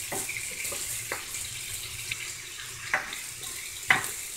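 Chopped garlic sizzling in hot oil with browned pork in a stainless pan, a steady hiss broken by a spoon knocking against the pan about four times as it is stirred.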